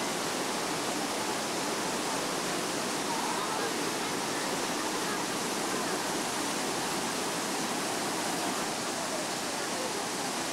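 Water rushing steadily down a cascading waterfall over rock, a continuous even roar of white water, with faint voices of people mixed in.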